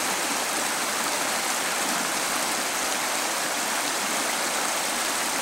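Steady, unbroken rushing noise with an even level, like running water.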